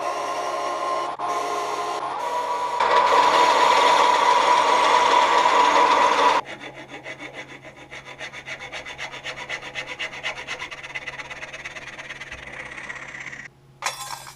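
A wooden cylinder turning on a metal lathe with the cutting tool shaving it, a loud dense scraping, for about six seconds until it stops abruptly. After that comes quieter, rapid back-and-forth sawing as a thin hand-held blade cuts a small wooden plug off the stock, ending shortly before the end.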